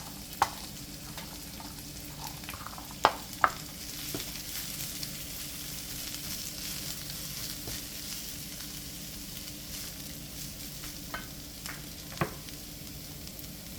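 Vegetables sizzling in oil in a frying pan, with a steady hiss and a few sharp clacks of a utensil against the pan as the cabbage goes in and is stirred.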